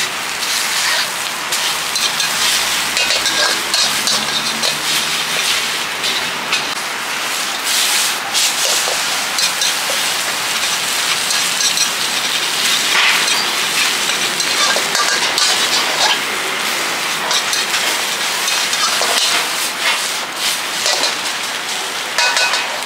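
Egg, chicken and squid sizzling loudly in a hot wok, with a steel spatula scraping and clacking against the pan as the food is stirred and tossed.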